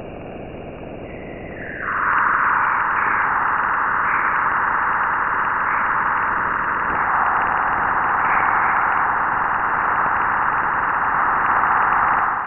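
Sonified space radio emissions recorded by a NASA spacecraft, played as sound: a dense, steady hissing rush that swells much louder about two seconds in and cuts off suddenly at the end.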